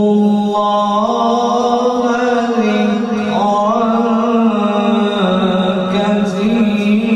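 A male qari reciting the Quran in the melodic tilawat style: one long unbroken phrase of held, ornamented notes that steps up in pitch about a second in and again past three seconds, then falls back near five seconds.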